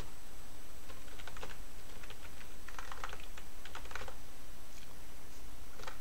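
Computer keyboard keys clicking in a few short bursts of typing, with one separate key press near the end.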